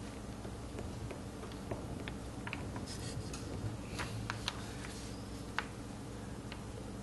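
Faint scattered clicks and taps of a carved stone seal being pressed and rocked on paper to make a test imprint, the clearest ticks a little past the middle, over a steady low hum.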